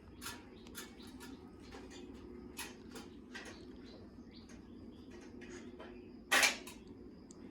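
Scattered light knocks and clicks of handling, with one louder knock about six seconds in, over a steady low hum.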